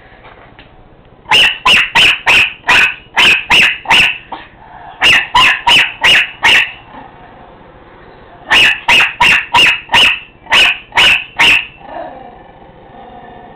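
Small dog, a miniature pinscher, barking in quick runs of four to eight sharp, high barks, about three a second, with short pauses between the runs.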